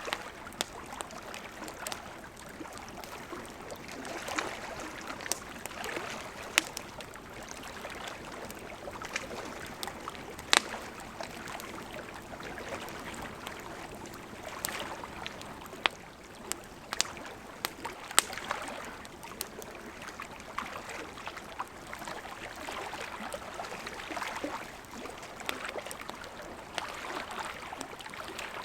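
Wood fire crackling, with irregular sharp pops, a few of them loud, over the gentle lapping of lake water that swells and ebbs every few seconds.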